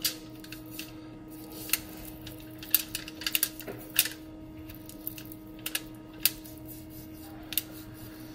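Irregular sharp clicks and ticks from a knife trimming a raw pork butt on a foil-covered table, over a steady hum.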